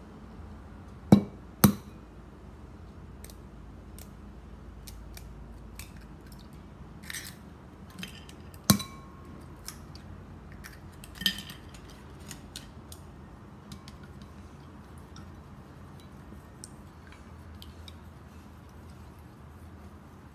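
Eggs knocked sharply against the rim of a ceramic bowl to crack them, two knocks about a second in and another about nine seconds in, then chopsticks ticking lightly against the bowl as the eggs are beaten.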